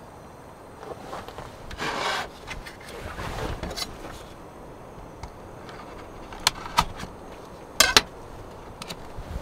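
Rubbing and scraping of handled objects, with a louder scrape about two seconds in, then two pairs of sharp knocks, the second pair loudest.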